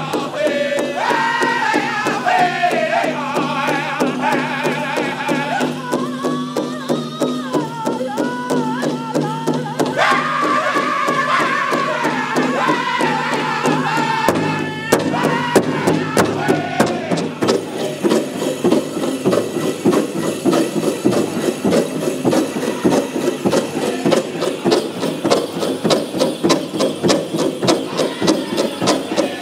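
Powwow drum group singing a men's chicken dance song: several men's voices in high-pitched unison over a large powwow drum struck together in a steady beat. About halfway through the high singing eases off and the drumbeat stands out more.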